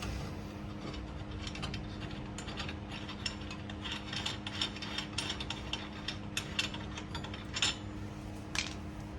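Hand ratchet wrench clicking in quick runs of strokes, with a few louder clicks near the end, over a steady background hum.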